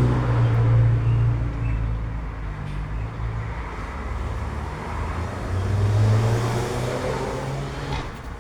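Road traffic: cars passing, a low rumble that swells near the start and again about six seconds in.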